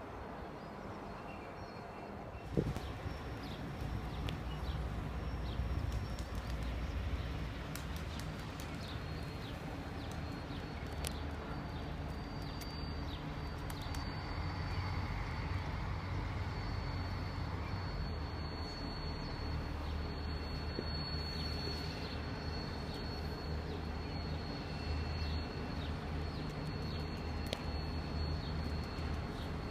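Irish Rail class 071 diesel locomotive's EMD V12 two-stroke engine running as it approaches slowly hauling a train of flat wagons: a steady low engine drone, louder from about two and a half seconds in, with a few scattered clicks from the wagons.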